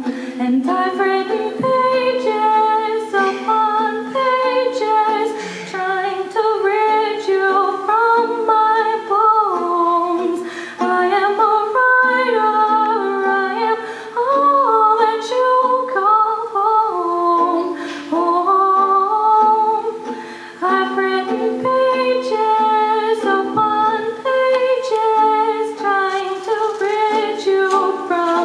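A young woman singing a slow song solo into a microphone, with gliding, held notes. Underneath runs a low, steady accompaniment whose notes change every second or two.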